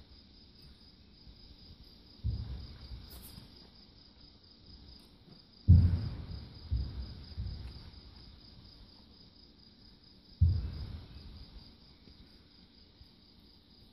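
A steady, high, fast-pulsing trill throughout, like insects. Over it are several dull low thumps, each fading within about half a second: one about two seconds in, the loudest just before six seconds, two more soon after, and one about ten and a half seconds in.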